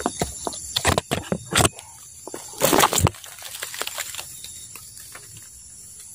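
Leaves and twigs of a rukam bush rustling and snapping as its fruits are picked by hand: a few sharp snaps in the first second and a half, a louder rustle about three seconds in, then it settles. Crickets chirr steadily behind it.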